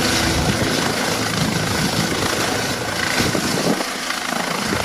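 Helicopter rotors and turbine engine running during a landing on a ship's deck: a steady rushing noise with a fluttering low end.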